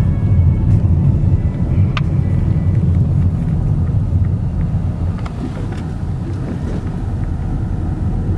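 A car driving, heard from inside the cabin as a steady low rumble of engine and road noise.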